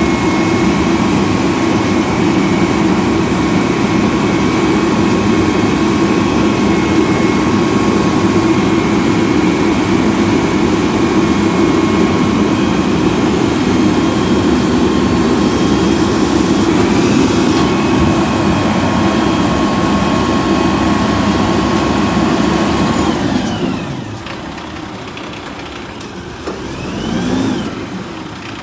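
Side-loader garbage truck's engine running loud and steady at raised speed, with a thin steady whine over it. About two-thirds of the way through the speed falls and the sound drops to a quieter idle, then near the end a brief rev rises and falls.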